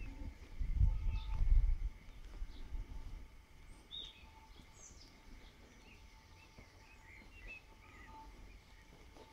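Small birds chirping and calling on and off, with a loud low rumble of wind on the microphone for the first two seconds or so.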